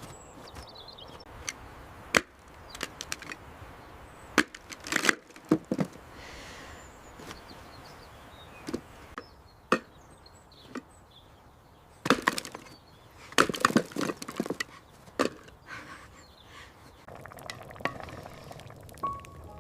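A series of sharp, irregular knocks and cracks, some single and some in quick clusters.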